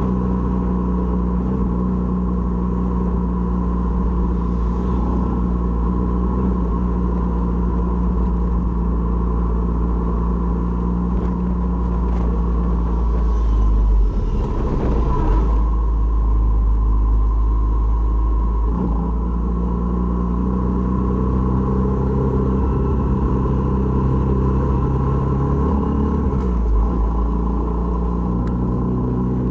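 Honda MSX125's air-cooled 125 cc single-cylinder engine running on the move, its note dropping about halfway through and rising again a few seconds later. A brief rush of noise comes through near the middle.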